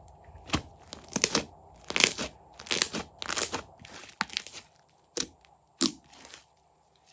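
Fluffy slime being squeezed and pulled by hand, a series of short crackling squishes and tearing sounds that stop about six seconds in.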